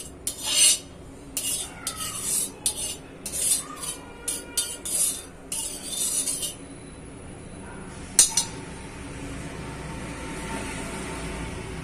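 Slotted steel spatula scraping across an iron tawa in quick repeated strokes, spreading oil over the pan, for about the first six and a half seconds. A single sharp clink comes about eight seconds in, and a steady low hiss follows once the scraping stops.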